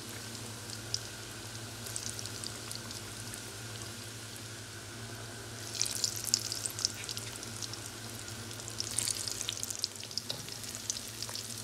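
Roscos dough rings deep-frying in hot oil, a steady sizzle full of small pops and spits, busier about six seconds in and again around nine seconds.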